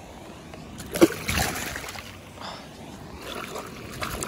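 A largemouth bass released back into the pond, hitting the water with one sharp splash about a second in, followed by brief sloshing.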